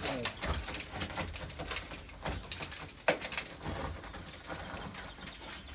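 Shattered car windscreen glass crackling and crunching as the broken pane is worked out of its frame, with one sharper crack about three seconds in.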